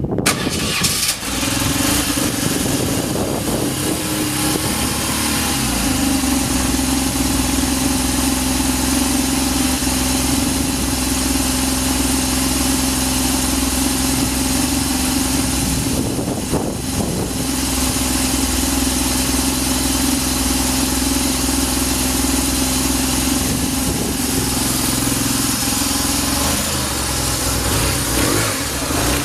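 BMW R1100RS air/oil-cooled boxer twin catching on the electric starter and then idling steadily, with a brief change in the note about 16 seconds in. The idle sounds even and free of unusual noises.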